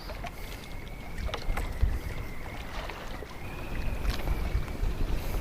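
Strong gusty wind rumbling on the microphone in a small open boat on the sea, with water lapping at the hull. A faint wavering high whine runs underneath.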